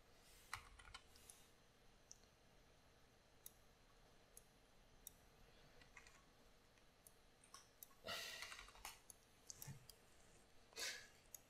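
A cat crunching food, faint, in a few short spells, the loudest about eight seconds in, with faint scattered mouse clicks between.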